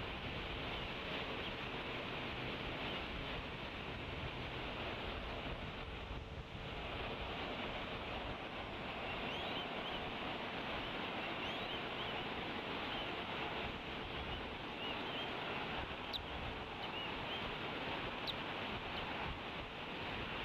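Steady wind noise on an outdoor nest-cam microphone, with faint high chirps in the middle and two sharp clicks near the end.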